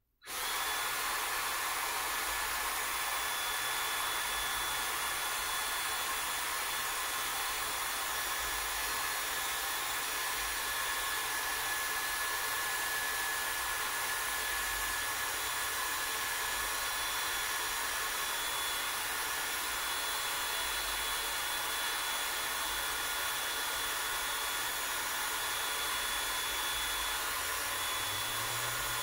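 Cordless drill motor running steadily at low speed, winding strands of cut plastic grocery bags into twisted rope. It makes an even whirr with a faint whine, and starts suddenly.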